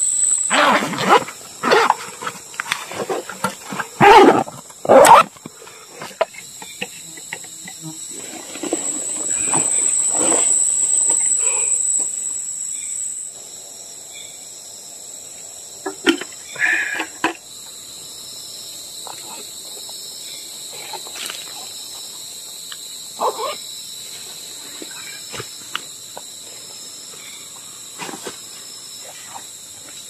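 Forest insects keep up a steady high-pitched shrill drone that swells for a few seconds near the middle. Over it come the rustle of dry leaf litter and the handling of a backpack and gear, with two sharp knocks about four and five seconds in.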